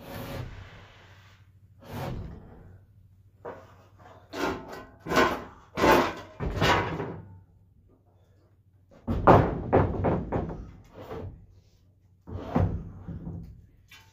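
Long wooden boards knocking and thudding against wooden roof beams as they are shifted and bounced into place: a run of irregular knocks, some in quick clusters, with a short lull just past the middle.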